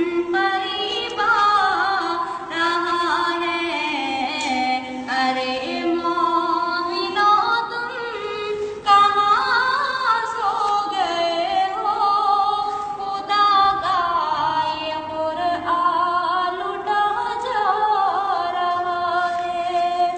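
A single voice singing a naat (Islamic devotional poem in praise of the Prophet) unaccompanied, in long winding phrases with drawn-out notes.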